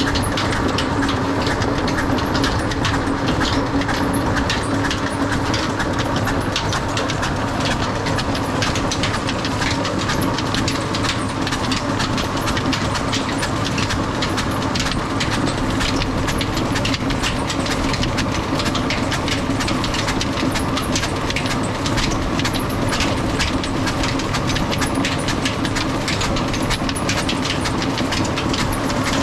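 Old diesel engine with a large flywheel running steadily under load, with a dense, rapid clatter, driving a tubewell pump by a flat belt.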